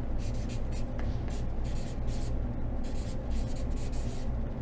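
Felt-tip marker writing on flip-chart paper, a quick run of short scratchy strokes that stops shortly before the end, over a steady low hum.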